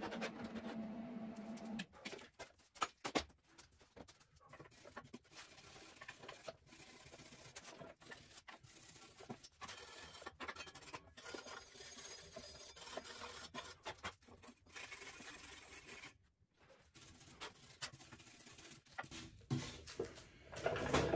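The Razor E300's electric drive motor runs with a steady hum for about the first two seconds, then stops. After that come scattered clicks, taps and rubbing as the scooter frame is handled and its wiring is worked on.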